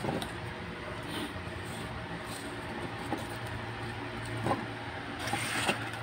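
A steady low mechanical hum, with a few light clicks and a brief rustle near the end as seat-belt webbing and retractor parts are handled on a wooden table.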